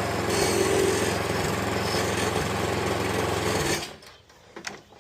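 Craftsman lawn mower's small engine running steadily, then shut off abruptly nearly four seconds in, leaving a few faint clicks.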